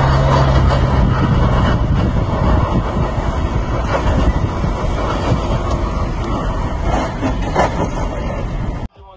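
Loud, steady road noise of cars driving on a street, heard from inside a moving car, with a low engine hum in the first second or so. It cuts off suddenly near the end.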